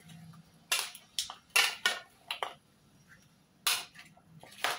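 Metal fork and spoon clinking against a glass bowl as a chopped fruit and vegetable salad is tossed: about half a dozen sharp, irregular clinks, with a quiet pause of about a second midway.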